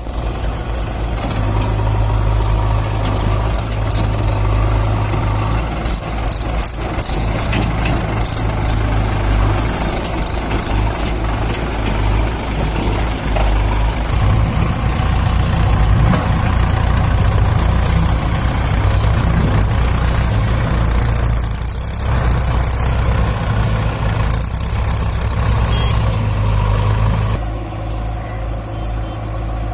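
Diesel engines of a Mahindra 585 DI tractor and a JCB backhoe loader running steadily. The sound drops slightly in level near the end.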